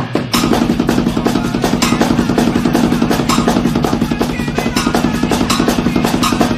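Drum kit played fast: a dense, even run of rapid strikes over a steady low tone, after a brief break just after the start.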